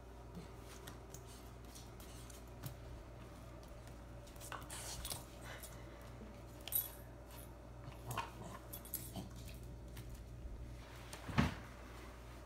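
A Bernese mountain dog puppy scrambling on a slate tile floor around a lemon half: scattered clicks and scuffs of its claws on the tile, with bursts of light metallic jingling. The loudest knock comes near the end.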